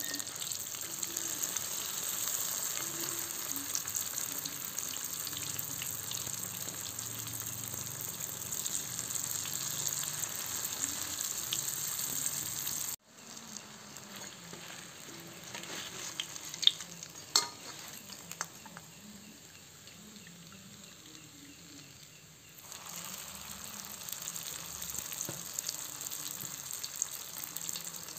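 Banana-and-sugar spring rolls deep-frying in oil in a wok, a steady sizzle. About halfway through it drops suddenly quieter while the rolls are golden brown, with a few sharp clicks like a metal spatula against the wok. Near the end it grows louder again as a fresh roll fries.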